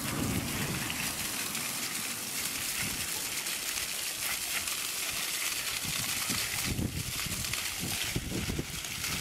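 Water spraying hard from a hose and splashing over a person, a steady hiss of spray, with a few low thumps in the second half.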